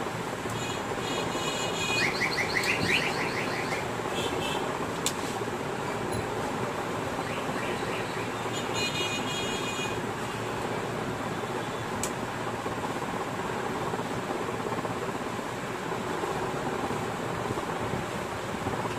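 Steady background noise, broken twice by a high warbling chirp with rising steps in pitch: once in the first few seconds and again about nine seconds in. There are two short clicks, about five and twelve seconds in.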